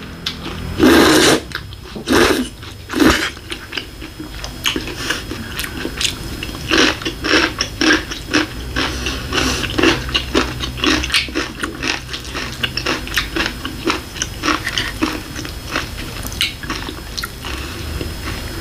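Ramen noodles slurped loudly three times in the first few seconds, then close-up chewing: a long run of quick mouth clicks.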